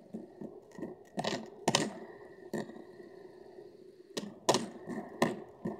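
Silicone pop-it fidget toy having its bubbles pressed one by one with a finger: irregular popping clicks, about eight, a few louder than the rest.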